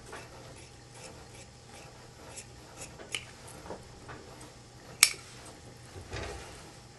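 Large tailor's shears cutting through cotton shirt fabric, a run of soft, quick snips. About five seconds in comes a single sharp metallic clack, the loudest sound, then a dull thump and fabric rustling.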